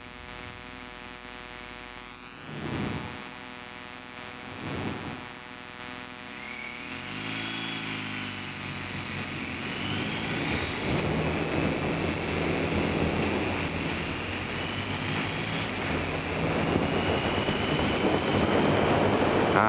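BMW R1250GS Adventure's boxer-twin engine running at low road speed, then accelerating from about seven seconds in, its note rising as wind noise builds with speed. Two brief swells of sound come near the start.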